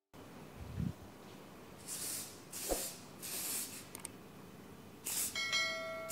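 Aerosol hairspray can spraying onto hair in about four short hissing bursts.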